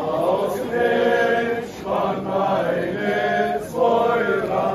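A crowd of young men and women singing together in unison, in short chanted phrases about a second long, four in a row.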